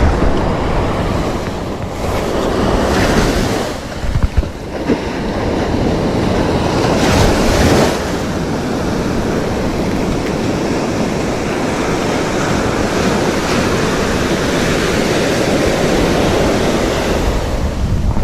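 Ocean surf breaking and washing up the beach in swelling rushes, with wind buffeting the microphone. A couple of brief thumps come about four seconds in.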